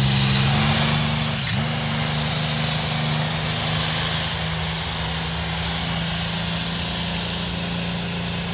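A tractor-pull tractor's engine running hard under load as it drags the weight-transfer sled. It holds a steady pitch, with one brief dip and recovery about a second and a half in.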